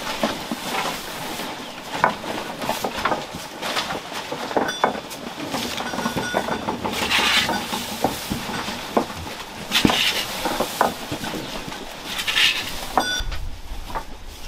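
Sheep feeding on vine prunings at a wooden feeder: leaves rustling and being torn off and chewed, with many scattered clicks and knocks. Louder rustles come about seven, ten and twelve seconds in.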